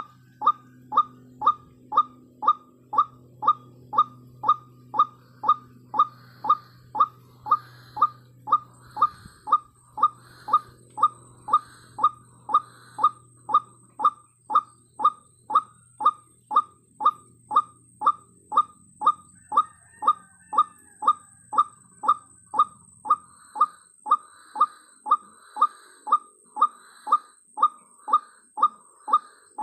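White-breasted waterhen (ruak-ruak) calling: one short note, repeated very evenly about twice a second.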